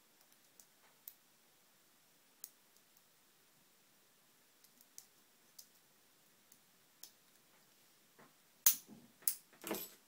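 Single-pin picking of a five-pin padlock: scattered faint metallic clicks and ticks of the pick working the pins under tension. About nine seconds in comes a quick run of louder clicks and rattles as the lock opens and the tools come out.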